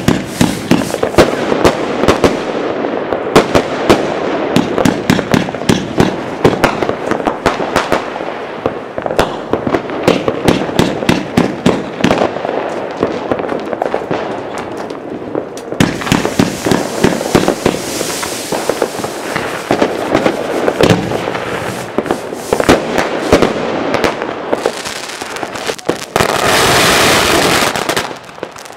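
A dense, continuous barrage of exploding fireworks and firecrackers, many sharp bangs and cracks overlapping one another. Near the end a loud steady hiss takes over for about two seconds.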